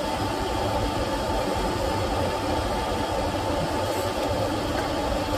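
Handheld gas cartridge torch burning with a steady, even hiss. Its flame is heating a seized, broken exhaust-manifold bolt in the cylinder head toward red hot, so the metal expands and the bolt can be extracted.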